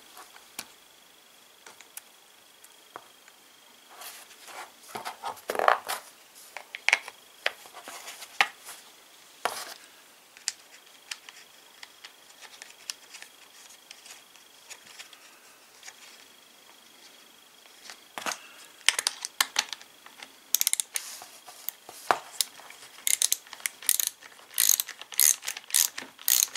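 Scattered clicks and rattles of a saw chain and plastic parts being handled on a small cordless chainsaw, then a ratchet wrench clicking in quick runs near the end as the bar-cover nut is snugged down.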